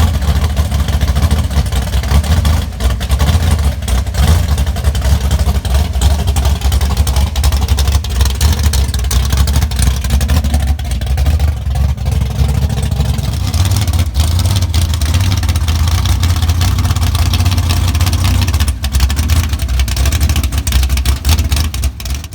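Loud car engine running steadily with a heavy low rumble, cutting off suddenly at the end.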